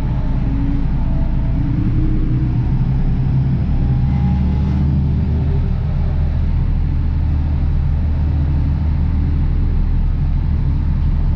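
Deutz-Fahr tractor's diesel engine running steadily as the tractor drives along, heard from inside the cab.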